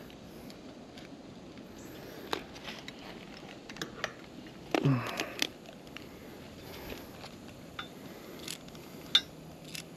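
Ratchet strap being threaded and worked through its metal ratchet buckle, with scattered light clicks and rattles. A few louder clicks come about five seconds in and again near the end.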